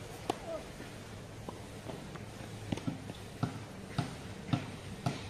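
A tennis ball struck by a racket with one sharp pop just after the start, then a run of lighter knocks about every half second from play on the hard court.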